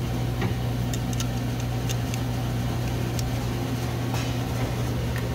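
Steady low mechanical hum of workshop machinery, with a few faint metal clicks from the valve spring compressor being worked on the aluminium cylinder head.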